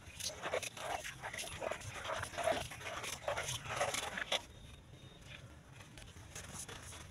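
A dog making a quick run of short panting or yelping sounds, about two or three a second, that stops a little past the middle.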